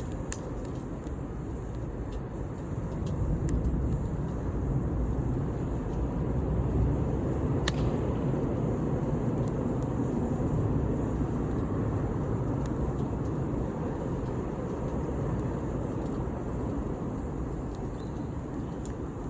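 Wood campfire with a few scattered sharp crackles and pops over a low, steady rumble that swells a little in the middle.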